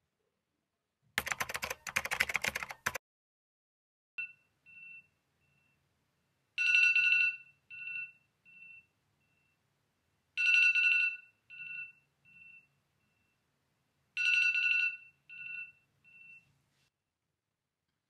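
iPhone alarm tone ringing. It starts faintly, then sounds three times at full level about four seconds apart, each time a bright chime note followed by two or three fading echoes. Before the alarm starts there is a short burst of rustling noise.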